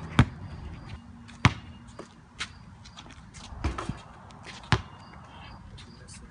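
Basketball bouncing on a concrete driveway, about five separate bounces roughly a second apart.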